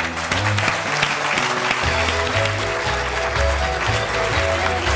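Studio audience applauding while a music cue plays under it, with a bass line and held notes.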